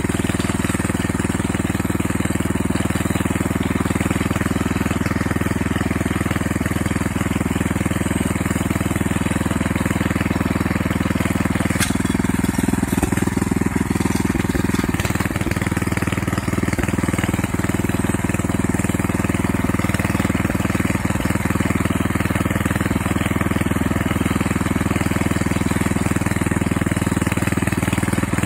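Walk-behind tractor's small petrol engine running steadily at working speed while it pulls its lug wheels and tines through the soil between rows.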